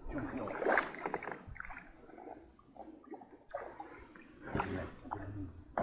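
Small water sloshes and gurgles around an inflatable PVC boat, with irregular rustling and knocking as gear is handled in the boat.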